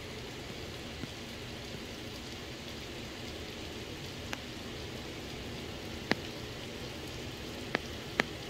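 Steady rain falling at night, with a few sharp single drops striking close by in the second half.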